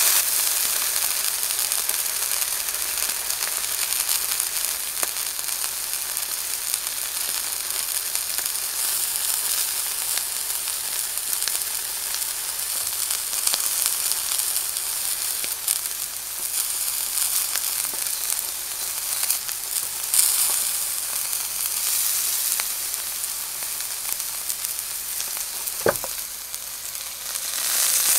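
Elk steak sizzling as it sears in a hot frying pan: a steady hiss with scattered small pops, and one sharper pop near the end.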